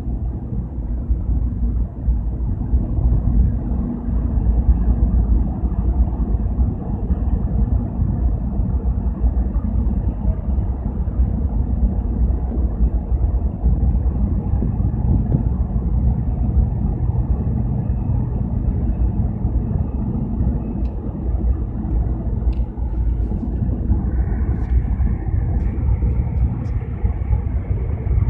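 Steady low rumble of marine diesel engines from a harbour tugboat pushing against a livestock carrier ship, with the ship's own engine running. A higher-pitched hum joins the rumble near the end.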